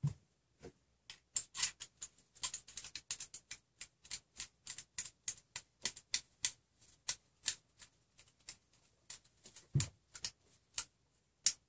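Idler bolts with springs being turned by hand through the extruder's idler into their nuts: a run of small clicks and ticks, several a second, with one louder knock near the ten-second mark.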